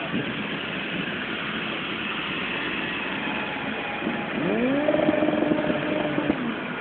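Motorcycle engine accelerating about four seconds in, its pitch rising and then holding steady for over a second before dropping away, over a steady rush of traffic and road noise.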